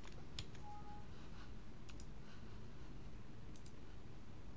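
A few faint computer mouse clicks, spaced out over a low steady background hum.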